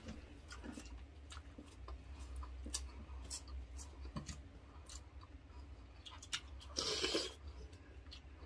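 Chewing and eating sounds from a meal of beef pares, with scattered small clicks and a louder noisy burst about seven seconds in, over a steady low hum.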